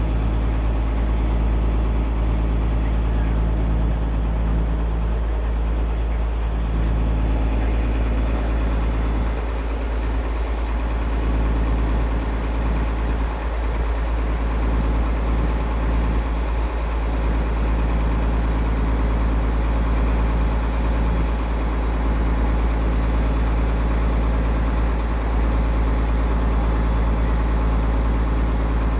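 Boat engine running steadily with a heavy low hum.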